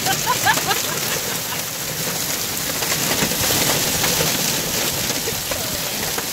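Heavy rain mixed with hail pelting the pavement and car in a dense, steady hiss.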